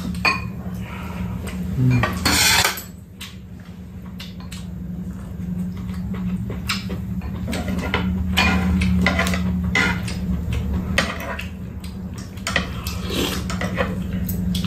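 Spoons and chopsticks clinking and scraping against ceramic bowls and a metal tray during a meal, in many short, irregular clicks, over a steady low hum. A brief rushing noise about two seconds in.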